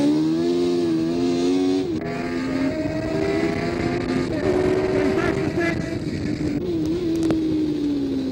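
Tyrrell P34's Ford-Cosworth DFV V8 racing engine at speed, heard onboard. The engine note wavers up and down, steps down about two seconds in, and falls slowly near the end.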